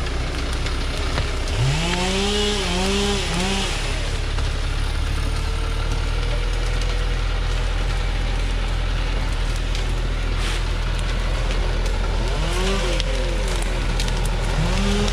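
A log truck's diesel engine running hard under load while the loaded truck turns around over a bed of stripped acacia bark and branches, with crackling of debris under the tyres.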